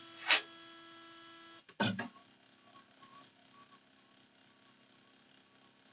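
LongMill CNC's Z-axis stepper motor whining steadily as it drives the V-bit down onto the touch plate in a Z-probe cycle, after a couple of sharp clicks at the start. The whine stops with a knock a little under two seconds in, and a fainter, lower motor hum follows as the probe cycle carries on.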